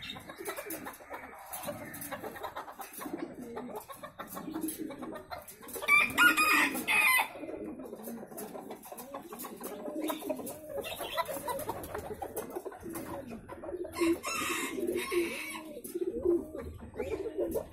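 Chickens calling: hens clucking low and repeatedly, and a bantam rooster crowing once, loudly, about six seconds in.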